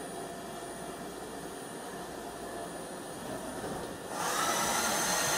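A WFL Millturn mill-turn machining centre running with its roughing cutter at a steel workpiece, making a steady mechanical noise. About four seconds in, a louder rushing hiss rises and holds for about a second and a half as the milling head moves away from the part.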